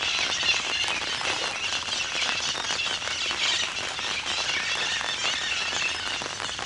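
Steady rain falling on lake water, a dense patter of small drop ticks over an even hiss.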